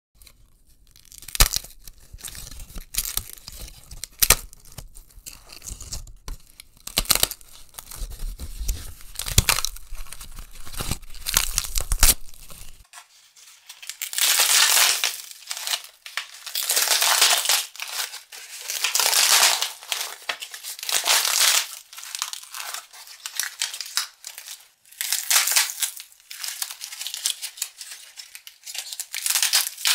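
Paper and cardboard packaging being crushed. For about the first twelve seconds it gives sharp crackles and snaps, then long crunching bursts of about a second each, every couple of seconds.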